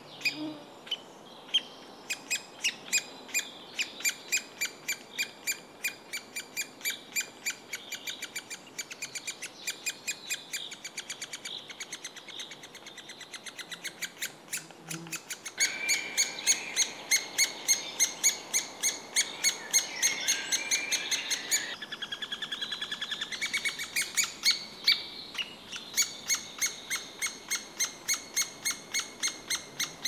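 Three-toed woodpecker nestling begging from inside the nest hole to be fed: a long run of short, high chirps, about two or three a second. For several seconds in the middle they come faster and louder.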